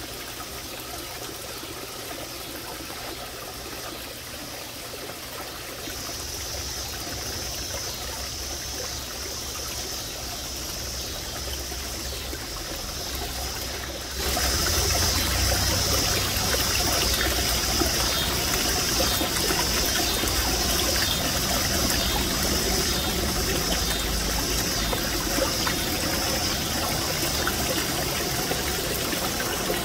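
Small garden pond waterfall trickling and splashing steadily into the pond, growing louder about halfway through. A high, faint chirping pulses about once a second over it.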